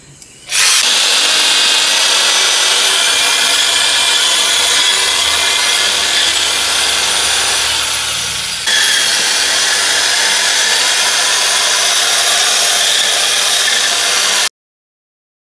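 Electric drill spinning a homemade bolted-on cutting blade through lawn grass: a loud, steady power-tool noise that steps up in level about halfway through and cuts off suddenly near the end.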